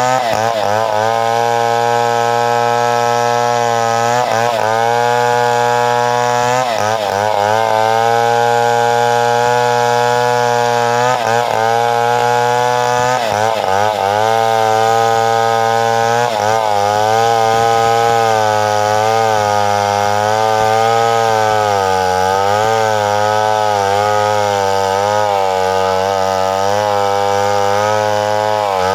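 Two-stroke chainsaw running at high revs while cutting coconut wood, its engine pitch dipping and recovering again and again as the chain bites into the cut.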